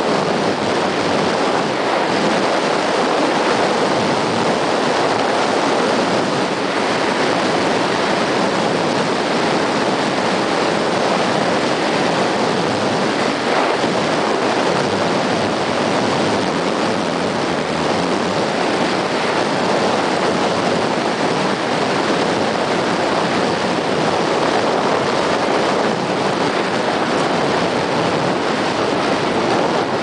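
Steady rushing noise of a mountain bike ridden fast downhill on a gravel trail: tyres rolling over the gravel, mixed with wind on the bike-mounted camera's microphone.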